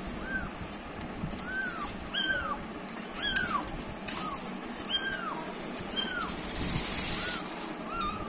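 Month-old kittens mewing: short, high, rising-and-falling mews repeated about once a second. A short rustling noise comes near the end.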